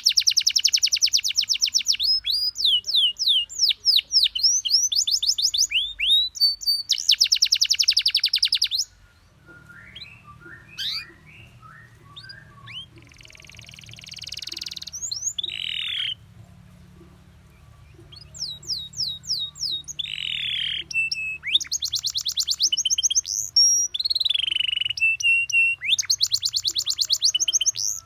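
Domestic canary singing: rapid rolling trills of repeated notes alternate with runs of high, downward-sweeping whistles. About nine seconds in the song drops to quieter, scattered notes over a low hum for about ten seconds, then the loud trills return.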